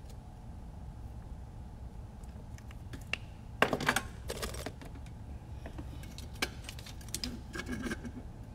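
Small clicks and clatter of a drone flight controller board and hand tools being handled and set down on a bench work mat, loudest about four seconds in and again near the end, over a steady low hum.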